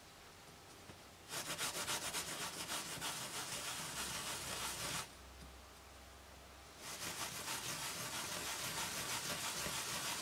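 An MDF jigsaw piece rubbed rapidly back and forth on a maroon abrasive pad, sanding its surface. There are two spells of rubbing of about three and a half seconds each, with a short pause between them.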